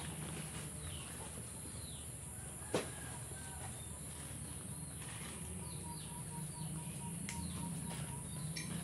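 Birds chirping in repeated short falling calls over a steady high hiss, with one sharp click about three seconds in.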